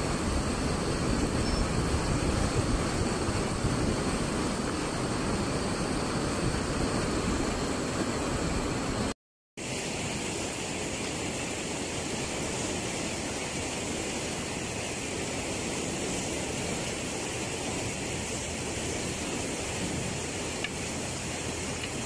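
Canal water rushing out of a headworks outlet in a white, churning torrent, a steady full rush. After a brief break about nine seconds in, a quieter, hissier steady rush of the flowing canal.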